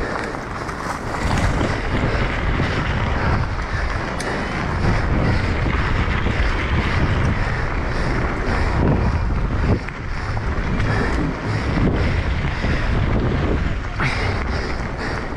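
Wind buffeting the camera's microphone as a mountain bike rolls fast down a loose gravel track, with the rumble of knobby tyres on the stones and a few sharp knocks from the bike, three times.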